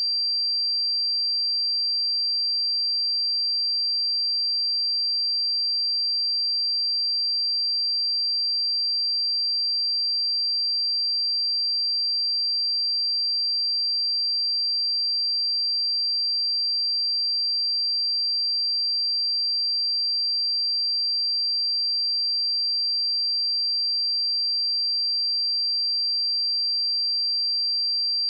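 A steady pure sine-wave test tone at 4715 Hz, a single high-pitched whistle held at constant pitch and level.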